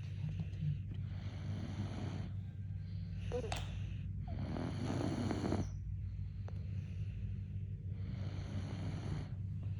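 A young child snoring in sleep: three long, rasping breaths about three and a half seconds apart, over a steady low hum.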